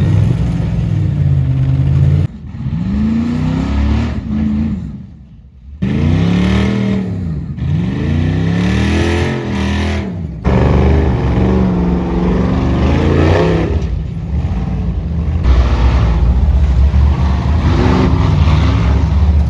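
Off-road race buggy engines revving in repeated bursts, the pitch rising and falling with each blip of the throttle. The sound changes abruptly several times as it jumps between cars.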